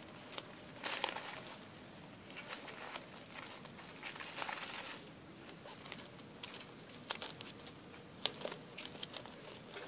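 Small puppies scrabbling about on dry dirt and brushing against a sack, making soft rustling and pattering with scattered small clicks. There are louder rustles about a second in and again around four to five seconds.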